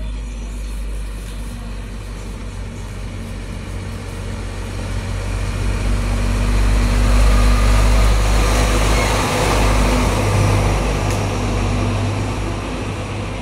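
Foton Auman dump truck's diesel engine running with a steady low drone as the truck approaches and passes close by. It grows louder to a peak in the middle, then fades a little as the truck moves away.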